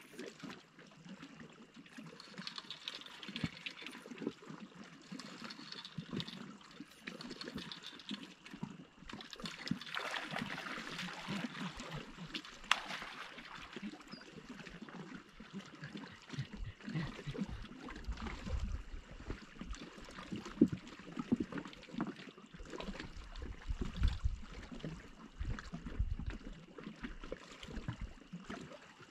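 Lake water lapping and trickling against a rocky shoreline, with irregular small splashes and low bumps that come more often in the second half.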